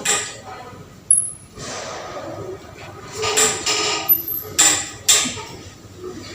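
Several sharp knocks and clicks, about five in all, with rustling between them: objects being handled and set down.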